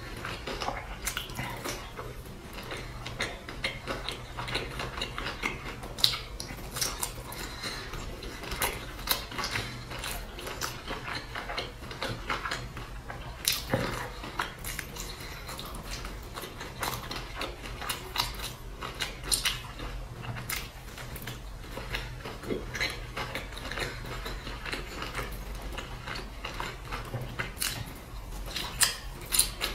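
Close-up biting and chewing of crisp-crusted pan-fried stuffed flatbread: irregular crunches and wet mouth clicks over a low steady hum.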